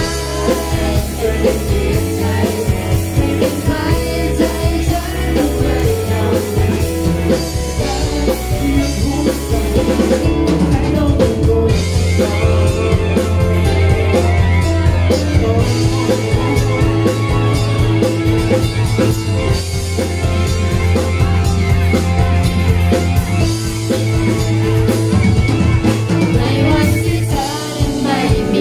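Male vocalist singing a Thai pop ballad live into a handheld microphone, backed by a band with drums, bass and guitar, heard through a stacked PA sound system.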